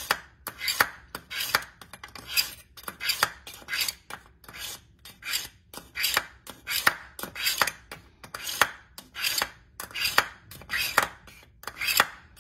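Kitchen knife blade pulled repeatedly through the fine ceramic stage of a KitchenIQ Edge Grip two-stage manual sharpener, a rasping scrape on each stroke, about one and a half strokes a second.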